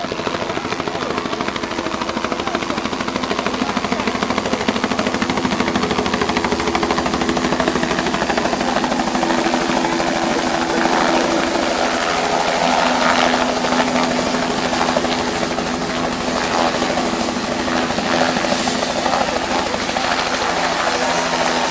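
Helicopter rotor and turbine engine running as it descends, hovers low and sets down, growing louder as it comes near. A steady high whine runs through it and falls in pitch near the end.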